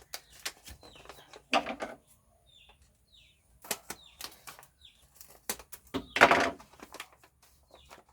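Birds chirping in short falling calls, with scattered clicks and two louder, harsher bursts, one about a second and a half in and one about six seconds in.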